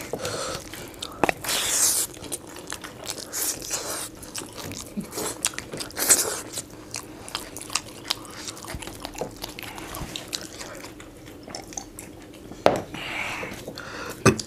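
Close-miked eating: two people chewing mouthfuls of rice with egg masala and dal, giving irregular wet smacks and clicks of chewing.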